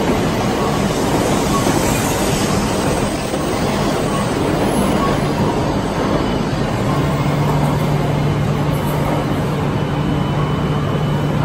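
E7/W7-series Shinkansen 'Kagayaki' train pulling out of the station, its cars running past the platform with a steady rumble of wheels and air. A low steady hum joins about seven seconds in.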